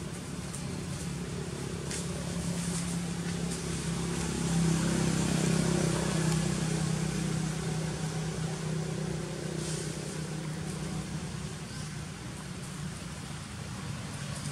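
A motor engine's steady low hum, swelling louder for a few seconds around the middle and then easing back.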